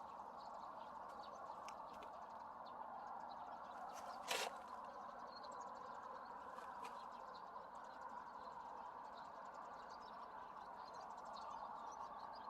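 Faint small-bird chirps scattered over a steady outdoor hiss, with one sharp click or knock a little over four seconds in.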